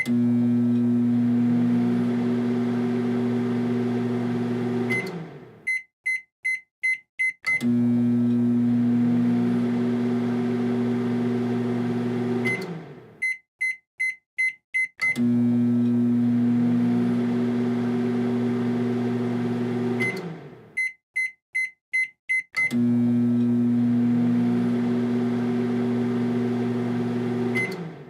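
Microwave oven running with a steady low hum that fades away as it stops, followed by a run of about five short high beeps signalling the end of the cycle. The run-and-beep sequence repeats, about every seven and a half seconds.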